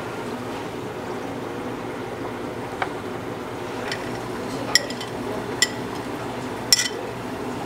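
Light clicks and taps against a glass dessert cup as chopped strawberry pieces are placed into it, about five in all, the loudest near the end, over a steady background hum.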